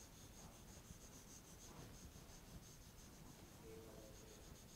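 Very faint scribbling of a pen on an interactive board's screen, in quick repeated back-and-forth strokes, as the upper half of a circle is shaded in.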